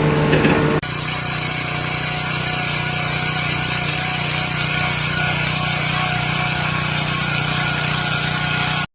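A machine running steadily with an even hum, cut off abruptly near the end. Under a second in, a louder, harsher sound stops suddenly and gives way to it.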